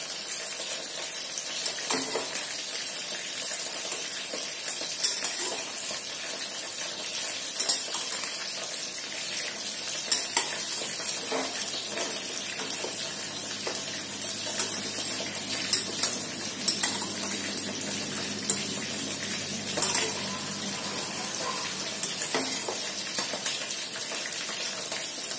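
A spatula stirring and turning cooked rice in a stainless steel pressure cooker, scraping and knocking against the pot's sides at irregular moments, over a steady hiss.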